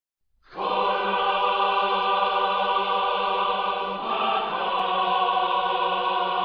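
Lightsaber sound effect: a steady, buzzing, droning hum that switches on about half a second in and shifts slightly in tone about four seconds in.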